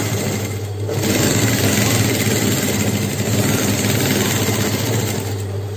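Sewing machine stitching steadily through folded layers of leather fabric under a non-stick plastic presser foot, from about a second in until near the end, over a steady low hum.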